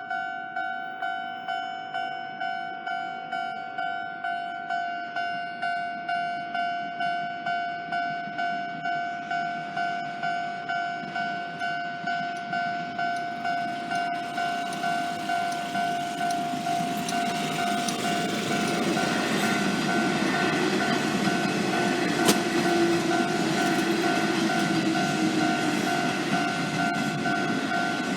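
Japanese level-crossing electronic warning bell ringing a steady, evenly repeated ding, about one and a half strikes a second. From about halfway a Sanyo Electric Railway train approaches and rumbles past the crossing under the bell, loudest near the end, with one sharp click in the passing.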